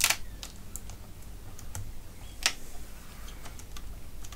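Light clicks and taps from hands handling a ribbon cable, its tape and the metal back of an LCD panel. A sharper click comes right at the start and another about two and a half seconds in, with fainter ticks between.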